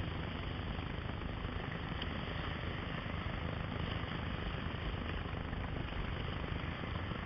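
Steady rushing of sea surge and whitewater washing over coastal rocks, with a heavy low rumble underneath.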